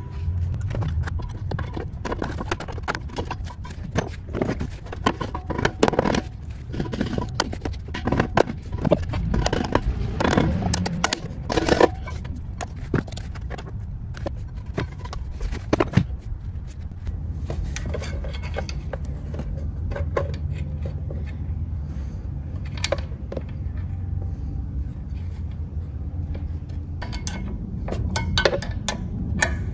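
Metal clinks, knocks and scrapes as an aircraft alternator is set back onto its mounting bracket and its bolts are started by hand, most of them in the first half, over a steady low hum.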